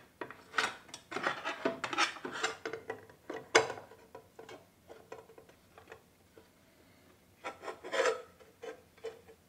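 Circular saw blade flanges being rubbed clean by hand: irregular rubbing and scraping strokes, densest in the first few seconds, with a further burst about eight seconds in.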